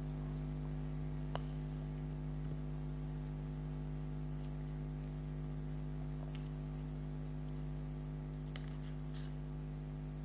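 Steady electrical hum on the recording, with a few faint, short mouth clicks from someone chewing soft syrupy sweets.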